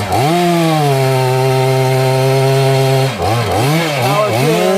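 Two-stroke chainsaw revved up to full throttle and held steady for about three seconds, then the engine pitch drops and climbs again several times as the throttle is worked, during tree felling.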